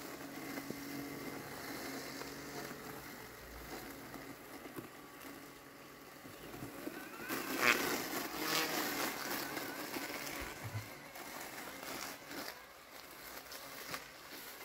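Landxcape LX790 robot lawn mower running, its motors humming as it drives and cuts through tall wet weeds. About seven seconds in, a louder stretch of rustling and cutting lasts a couple of seconds.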